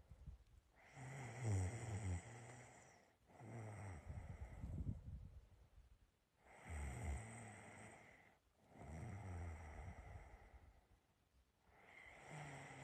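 A sleeping person snoring: a steady rhythm of breaths, in and out, about five in all, each lasting about two seconds with a short pause between, several with a low rasping snore.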